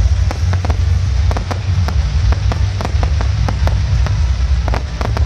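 Fireworks going off: a rapid, irregular string of sharp bangs and crackles, several a second, over a steady low rumble.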